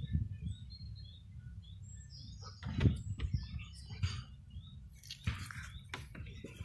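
Small songbirds chirping on and off over a low steady rumble, with a few short knocks, the loudest about three seconds in and others about four seconds in and between five and six seconds.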